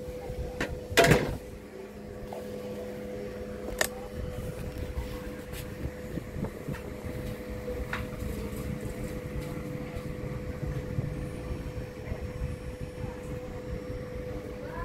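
A steady mechanical hum with a fixed tone over a low rumble, like a fan or air conditioner running, with one loud sharp knock about a second in and a few faint clicks later.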